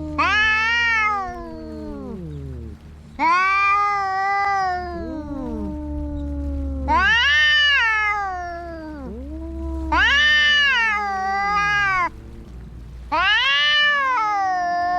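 Cats fighting, drawn-out yowling: five long, loud wails about three seconds apart, each rising then sagging in pitch, with lower, quieter falling moans between them. A steady low hum runs underneath.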